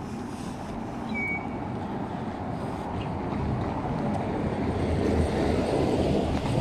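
A passing vehicle's rumble, growing steadily louder as it approaches.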